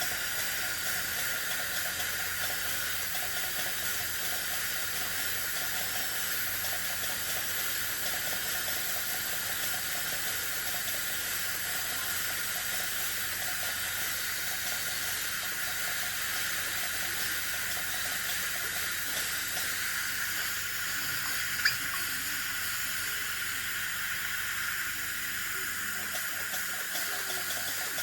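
Dental equipment hissing steadily, with water spraying, during access cavity preparation on a molar. A single sharp click comes about 22 seconds in.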